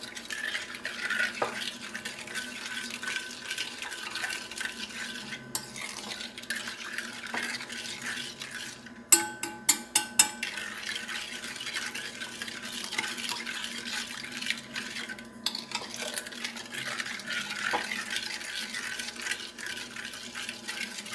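Metal spoon stirring a milky liquid in a glass bowl, scraping and clinking against the glass, with a quick run of sharper clinks about nine to ten seconds in.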